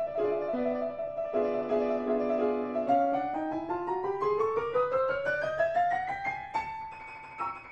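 Solo piano accompaniment to a silent film: a repeated figure of short notes, then from about three seconds in a rising run of quick notes that climbs to a held note near the end.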